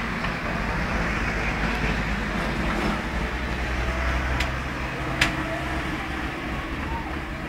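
A car driving past close by on the street, its engine and tyre noise swelling to a low rumble in the middle seconds, with two sharp clicks about four and five seconds in.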